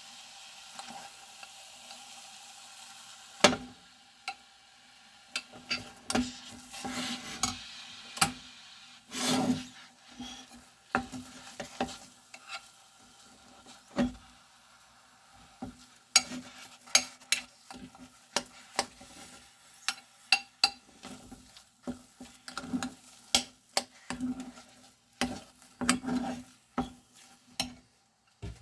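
A utensil stirring and scraping in a pan, with many irregular clicks and knocks against its sides, over a faint sizzle that fades out about three seconds in.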